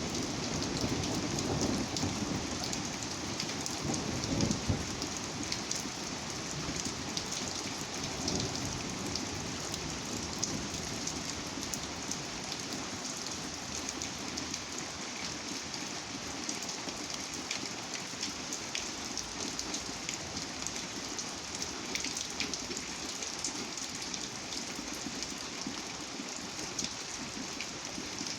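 Steady rain falling on a surface, with many individual drops ticking. A low rumble swells under it over the first several seconds and is strongest about four to five seconds in.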